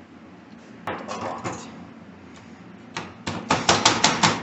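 Hammer blows on a computer motherboard, struck quickly about six times a second from about three seconds in, after a short clatter about a second in.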